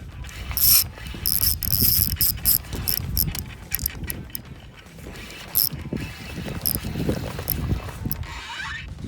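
Fishing reel being cranked under load, its gears and drag clicking and rattling in irregular bursts while a hooked fish is fought on the line.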